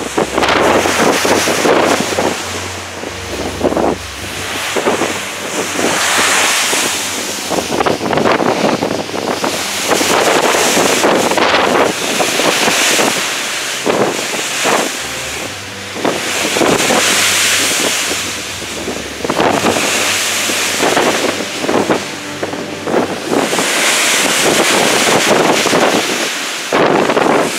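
Wind buffeting the microphone over the rush and hiss of white water breaking along the side of a moving cruise ship in rough seas. The sound swells and eases every few seconds.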